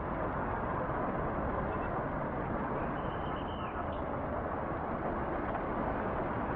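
Steady rumble of bus engine and road noise heard from inside the bus, with a faint short squeal about three seconds in.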